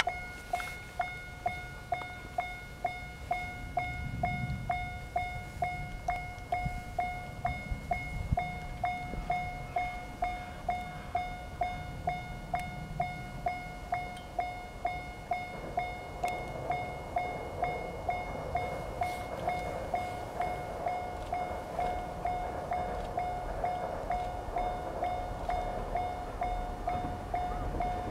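Japanese railway level-crossing alarm ringing steadily at about two strikes a second, warning of a train. In the second half the rumble of the approaching Train Suite Shiki-shima (E001 series) grows beneath the bell.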